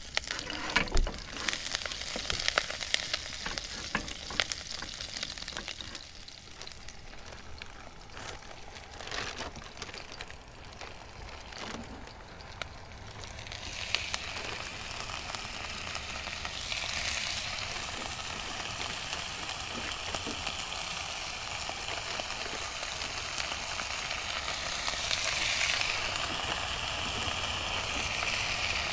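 Meat frying in a nonstick pan over a portable gas burner: a steady sizzle with scattered spatula taps and scrapes in the first half. About halfway through, more meat goes into the pan from a bag and the sizzle grows louder and fuller.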